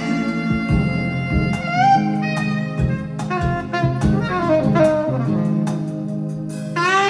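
Jazz horns playing an instrumental passage over a band: long held notes and notes that scoop up into pitch, with a few sharp accents.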